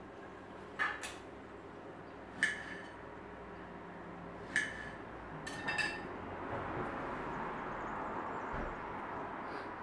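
Crockery clinking as strawberry slices are handled on plates: about six short, sharp, ringing clinks in the first six seconds, two close together just before the end of that stretch, followed by a soft steady noise.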